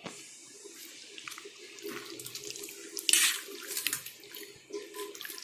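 Wet squishing of raw chicken pieces being stirred in a thick yogurt-and-spice marinade, in irregular bursts, the loudest about three seconds in.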